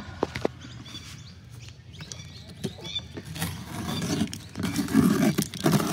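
Strong sticky tape being peeled off the lid seam of a 3D-printed RC boat hull, with scattered clicks and short high squeaks as the adhesive lets go, growing louder near the end.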